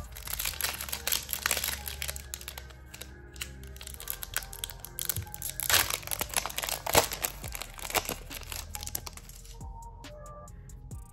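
Foil booster-pack wrapper crinkling and tearing as it is opened and handled, with sharp crackles that are loudest a little past the middle. The crinkling stops about a second and a half before the end, leaving soft background music.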